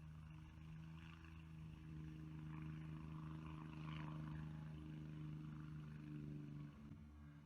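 Faint, steady engine hum that dies away near the end.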